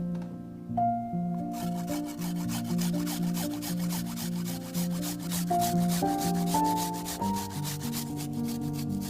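Fast, even scraping strokes, about six a second, starting about a second and a half in, over background music with sustained notes.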